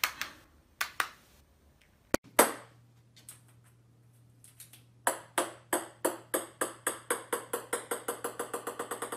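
Small ball bouncing on a hard floor: a single sharp knock about two seconds in, then from about five seconds a run of bounces that come faster and faster as the ball settles. A low steady hum runs underneath.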